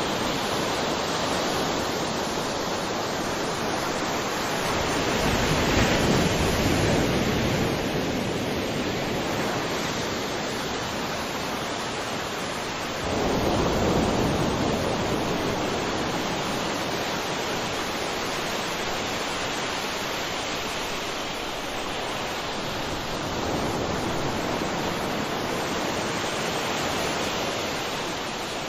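Ocean waves breaking and washing on the shore, a continuous surf wash that swells and eases, with a sharper, louder wave about halfway through.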